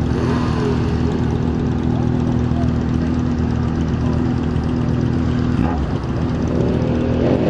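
Yamaha XJ6 N motorcycle's 600 cc inline-four engine running at a steady, unchanging pitch.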